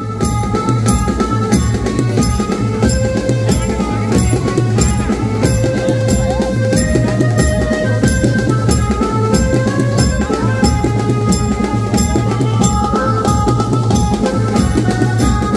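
Banjo-party band music: a stepping melody over heavy drums, with a steady beat of about two strokes a second.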